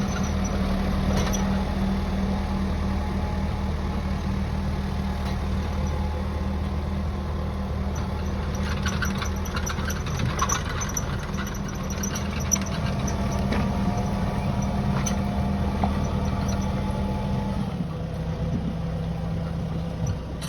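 Tractor engine running steadily, its pitch dropping a little near the end.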